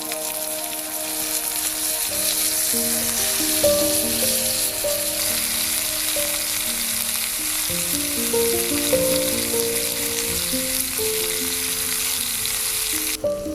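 Background music, a melody of held notes, over a steady loud hiss like rain or sizzling that cuts off suddenly near the end.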